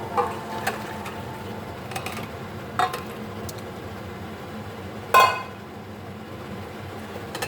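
Kitchenware clinking: a few light knocks of utensils against pots or dishes, with one louder ringing clink about five seconds in, over a steady low hiss.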